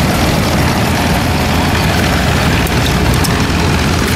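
An engine running steadily, loud and low-pitched.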